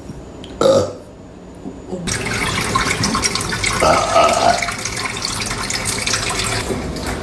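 A brief sound less than a second in, then from about two seconds a steady rush of running water.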